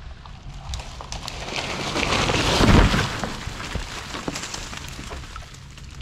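A large poplar tree falling: limbs crack and crash through the surrounding branches in a rising clatter, ending in a heavy thud as it hits the ground about three seconds in, with crackling of breaking branches after.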